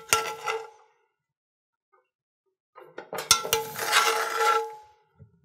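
A metal spoon scraping and clinking against a cast-iron skillet as it scoops up the butter-wine pan sauce, the pan ringing faintly under the strokes. There is a short burst at the start and a longer run of scrapes and clinks from about three seconds in.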